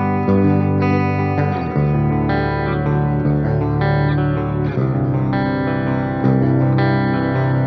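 Ibanez Axion Label RGD71ALMS seven-string electric guitar with Fluence Modern ceramic pickups, played through an amp simulator: ringing chords and low notes that change every second or so.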